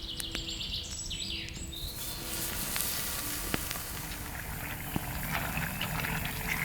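A small bird trilling in quick repeated high notes, then a steady crackling hiss with a few sharp pops.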